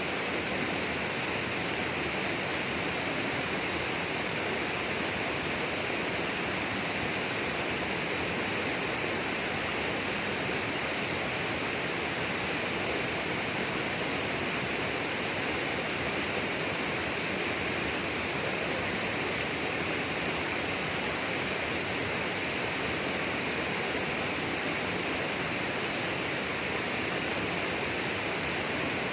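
Rainforest ambience of flowing water: a steady, unbroken rush with a high hiss on top.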